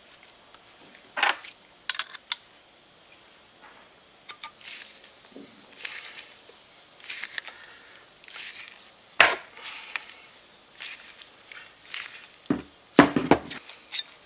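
Metal tools clinking and clicking as a two-jaw bearing puller is fitted and its screw turned by hand to draw a stuck ball bearing off a moped transmission gear shaft. Scattered clicks throughout, a single sharp metallic crack about nine seconds in, and several clanks near the end.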